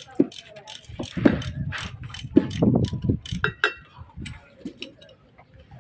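Socket ratchet wrench clicking in uneven runs as a bolt on a truck air dryer's housing is turned, with light knocks and clinks of the metal tools. The clicking is denser in the first half and thins to scattered ticks near the end.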